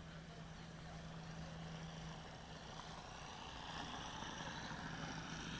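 Faint, steady engine drone with a constant low hum, growing a little louder over the second half.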